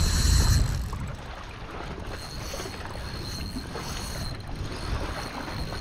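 Wind buffeting the microphone, heaviest in the first second, over small waves washing against a rocky shore.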